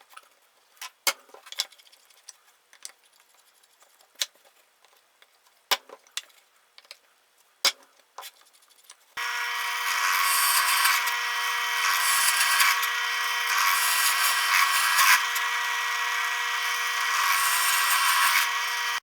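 A few scattered light clicks and taps of workpiece handling, then about nine seconds in a power drill starts up and runs steadily with a whine, boring holes in the wood for the dowels, until it cuts off abruptly.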